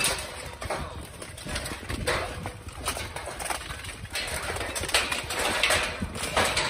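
Armored combat melee: repeated clanks and knocks of steel weapons striking steel plate armor as knights fight at close quarters.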